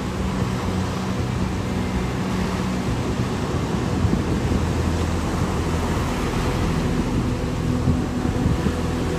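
Ocean surf washing steadily on the beach, with low, sustained ambient music chords underneath that change every few seconds.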